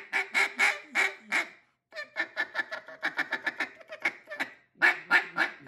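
Nose Dive double-reed duck call blown as hen quacks: a string of quacks, then a fast run of short clipped notes, then a few louder quacks near the end.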